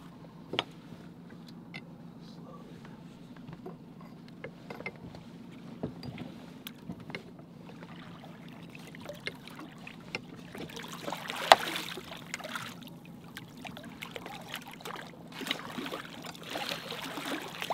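Boat engine idling with a steady low hum while small clicks and knocks come off the gunwale. In the second half a big halibut thrashes at the surface beside the hull, splashing, with one sharp knock about halfway through.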